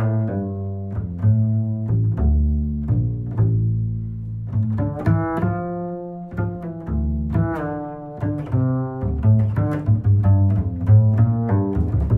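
Instrumental background music: a continuous line of short, distinctly pitched notes over deep bass notes.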